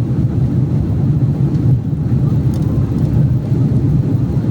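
Airliner cabin noise heard from a passenger seat: a steady, loud, low rumble of the jet engines and airflow.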